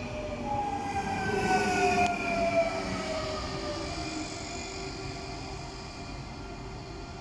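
Electric double-deck regional train moving off along the track, with a rumble and a whine in several tones that slide slowly downward. The sound fades as the train draws away.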